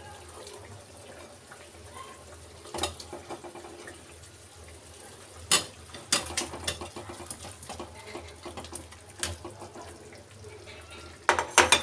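A metal spatula clinking and scraping against a metal kadhai and a glass bowl as paneer cubes are pushed into boiling gravy: a few separate clinks, then a quick cluster of them near the end, over a low steady background of the simmering pot.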